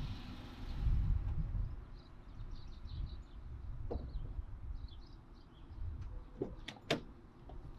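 Outdoor ambience: a steady low rumble with faint bird chirps and a few sharp clicks in the second half.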